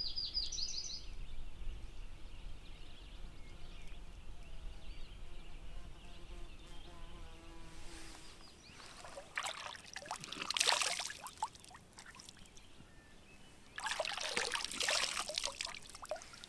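Lake water scooped up by hand and splashed onto a face, twice, with dripping and trickling in each splash.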